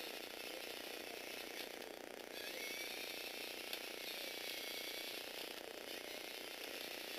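Small electric motor and plastic gearbox of a motorized Lego truck whirring as it drives, with a gear whine that rises in pitch about two and a half seconds in.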